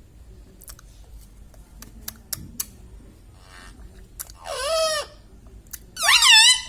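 Ringneck parrot giving two high, pitch-bending calls, one about four and a half seconds in and a louder one near the end, after a few seconds of faint scattered clicks.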